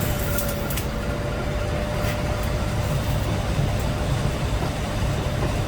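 Steady low machine rumble with a faint steady whine, and a few light clicks in the first second.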